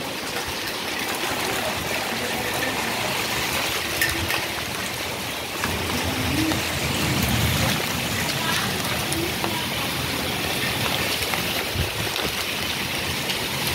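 Steady rain falling, an even hiss of water.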